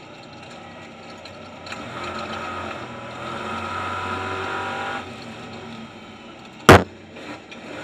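Stadium Super Truck V8 engines racing at close quarters. The engine note climbs under hard throttle about two seconds in and eases off near five seconds. Near the end comes a single sharp, very loud bang, followed by a couple of smaller knocks.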